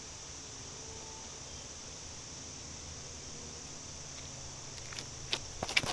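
Insects outdoors buzzing steadily in a constant high-pitched drone. Near the end, a few sharp scuffs and taps from the disc golfer's footsteps on the tee pad as he runs up and throws.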